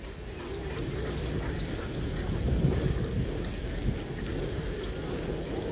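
Steady low rumble of tyres rolling along asphalt, mixed with wind noise on the microphone of the moving camera.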